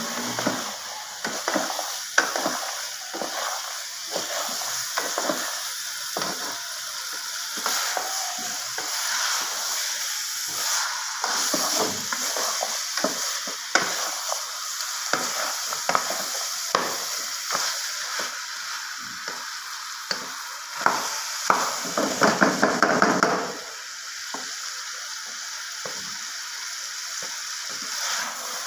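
Potato and cauliflower pieces frying in a metal pan with a steady sizzle, while a wooden spoon stirs them, scraping and knocking against the pan. About three-quarters of the way through comes a quicker, louder flurry of scrapes.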